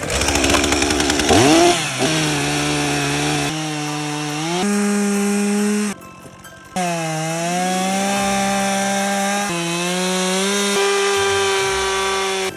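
Gas chainsaw running hard while carving wood. Its engine pitch sweeps up early on and then jumps between steady levels at several points. The saw drops out briefly about six seconds in, then revs back up.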